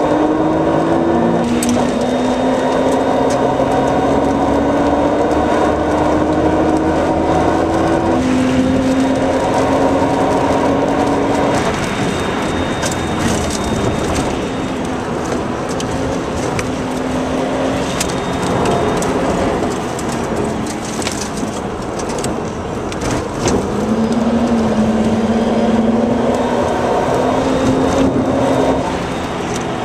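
Nissan Skyline R33 GTR's twin-turbo straight-six heard from inside the cabin under hard track driving: the pitch climbs in gear with upshifts about two and about eight seconds in. After about twelve seconds it eases off and runs quieter and rougher, then comes back on the power with the pitch rising again about two-thirds of the way through, with scattered knocks and rattles over the top.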